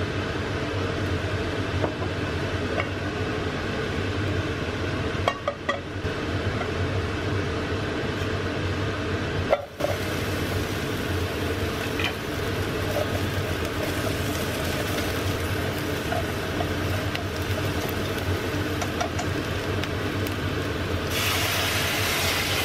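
Sliced onions frying in oil in a metal saucepan over a steady low hum, with a few sharp clicks in the first half. About a second before the end, a cup of water poured onto the hot onions sets off a loud, bright hiss.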